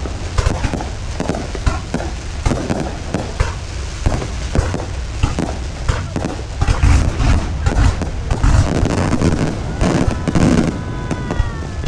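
Aerial fireworks display: a dense, unbroken barrage of bangs and crackles over deep booms, loudest about seven to nine seconds in.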